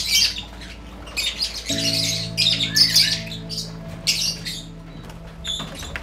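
A flock of lovebirds squawking and chattering in repeated short, shrill bursts, over steady background music that swells about two seconds in.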